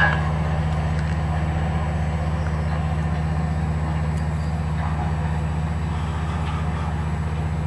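Engine of a slow-moving rail maintenance vehicle with a crane, running as a steady low drone with no change in pitch.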